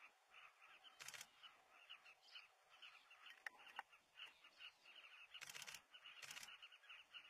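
Faint, continuous chatter of many short, repeated calls from a southern carmine bee-eater breeding colony. It is broken three times by quick bursts of camera shutter clicks: once about a second in, then twice close together near the end.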